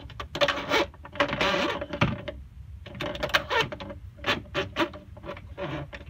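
Irregular clicking and scraping of a magnetic pickup tool's metal rod probing down a car's air intake to retrieve a dropped turbo whistler, with a faint steady hum underneath.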